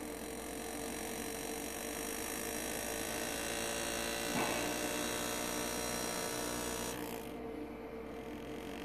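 Lindsay Classic pneumatic air graver buzzing steadily as it cuts into soft pewter, with one light click about four and a half seconds in; the buzz drops away about seven seconds in.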